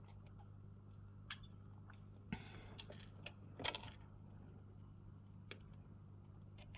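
Quiet room with a steady low hum and a few faint, scattered small clicks and short rustles from young rats moving about in their cage.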